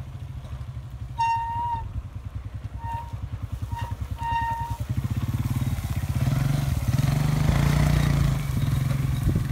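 A small step-through motorcycle's engine runs at low speed over rough ground. It grows louder about halfway through as the bike is ridden closer. Early on, four short, steady, high-pitched beeps sound over it.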